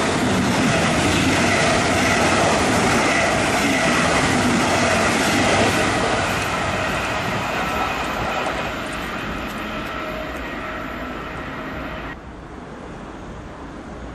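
Double-deck regional train with an electric locomotive passing close by: loud running noise of wheels on rails that slowly fades as the train moves away, then drops off abruptly about twelve seconds in.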